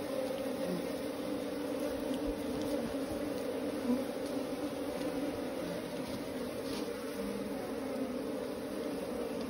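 A honeybee colony buzzing on its open combs: a steady, dense hum of many bees.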